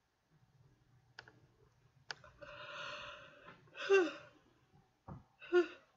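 A woman yawning: a long breathy yawn that peaks in a louder voiced sound about four seconds in, followed by a shorter sigh-like breath near the end.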